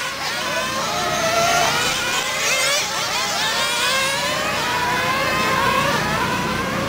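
A pack of 1/10-scale nitro on-road RC cars running flat out, their small glow engines making several overlapping high-pitched whines that keep rising and falling as the cars accelerate and lift.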